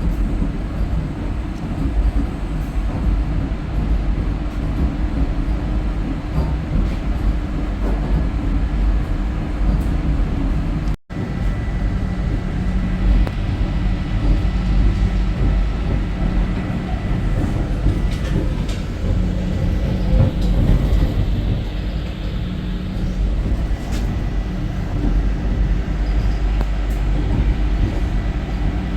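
Vande Bharat Express electric train running at speed, heard from on board: a steady low rumble of wheels on track. The sound drops out briefly about eleven seconds in, and a faint steady high tone joins after the break.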